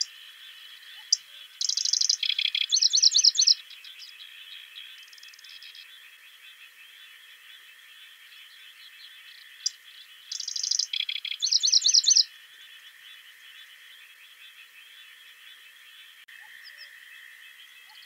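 A songbird sings two loud phrases about eight seconds apart, each about two seconds long: a rapid trill followed by a run of repeated ringing notes, each phrase preceded by a single short high note. Behind them runs a steady chorus of distant birds.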